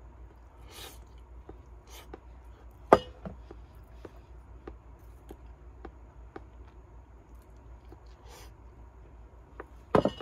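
A person chewing a mouthful of meatballs and rice, with small clicks of chopsticks against a ceramic bowl. One sharp click comes about three seconds in and a louder knock near the end.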